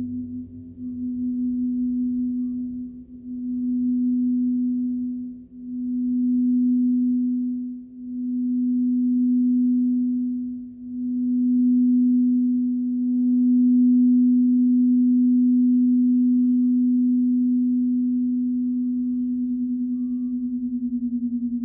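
A singing bowl, played by rubbing around its rim, sustains one steady, pure tone. The tone swells and dips every two to three seconds and wavers quickly near the start and end.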